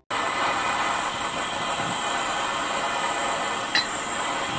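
Handheld propane torch burning with a steady hiss as its flame heats a seized steel pulley held under a puller's pressure. A single short, sharp tick sounds about three-quarters of the way through.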